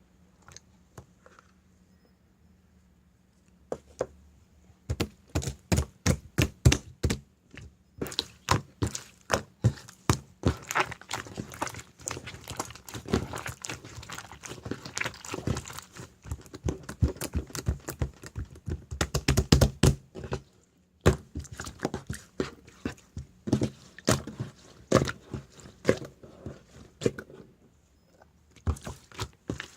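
Slime being pressed and squished by hand, making a fast, irregular run of small clicks and pops that starts a few seconds in and pauses briefly near the two-thirds mark.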